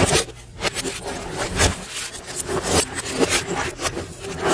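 Steel case of a Dell desktop computer scraping, rubbing and clattering against a wooden desk as it is tipped and handled, a busy run of knocks and scrapes. The audio is played in reverse.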